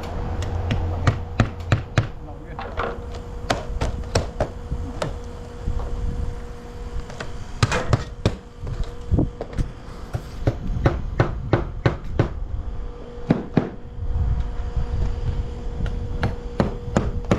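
Hammer driving nails into vinyl siding: several runs of quick, sharp strikes with short pauses between them.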